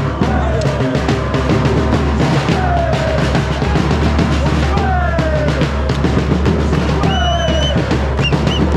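Drums beating a fast, steady rhythm amid a loud celebration. A pitched sound slides down in pitch about every two and a half seconds, and short high tones join in near the end.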